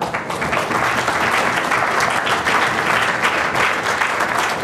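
Audience applauding, breaking out suddenly and holding steady as a dense patter of many hands clapping.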